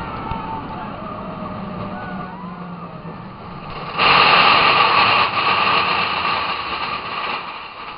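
Big Thunder Mountain mine-train roller coaster running along its track, a steady rumble with faint wheel squeals. About four seconds in it turns suddenly much louder as the train enters a tunnel, then eases off near the end.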